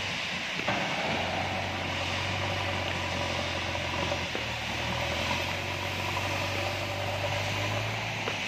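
JCB backhoe loader's diesel engine running under load as the front bucket digs into a pile of stone chips and lifts it; the engine note changes about a second in and again about four seconds in, over a steady hiss.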